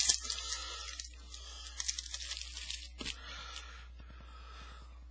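Foil trading-card pack being torn open and its wrapper crinkled, crackling through the first three seconds or so and then fading.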